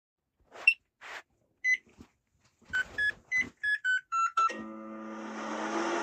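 Microwave oven sped up as in a nightcore track: a few clicks and single beeps, then seven quick keypad beeps at changing pitches, and the oven starts running with a steady hum about four and a half seconds in.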